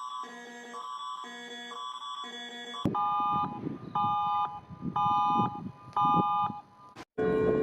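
Electronic emergency alert tones. First an alternating two-tone pattern repeats a little faster than once a second. About three seconds in, a different alert takes over with half-second beeps once a second over a rough background noise, and it cuts off near the end.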